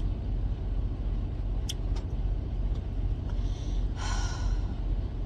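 Steady low rumble of a semi truck's diesel engine idling, heard inside the cab. A short hiss comes about four seconds in.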